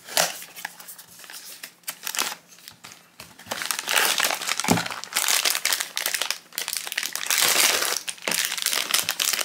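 A small cardboard blind box being opened, with light scratches and clicks of the card flaps. Then, about three and a half seconds in, a foil blind bag crinkles loudly and steadily as it is pulled out and opened.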